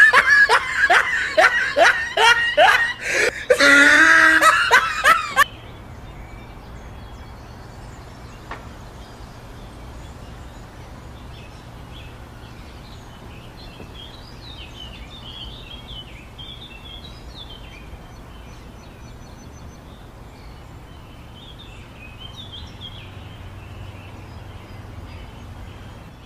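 Loud, hearty laughter in quick repeated bursts for about the first five seconds, cutting off abruptly. After that comes a faint outdoor background with scattered bird chirps.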